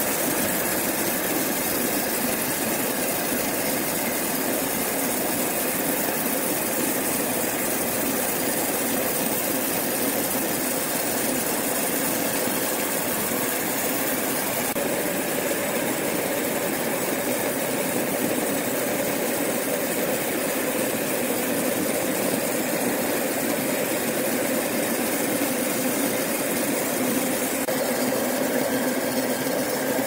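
Sawmill machinery running steadily, a continuous mechanical hum with a few held tones and no breaks.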